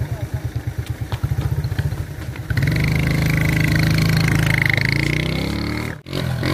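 Small single-cylinder engine of a Docker C50 step-through moped idling with even putts. About two and a half seconds in it is revved up and held as the bike pulls away carrying two riders, giving a steady, louder engine note with a whine on top. The sound cuts out for an instant near the end.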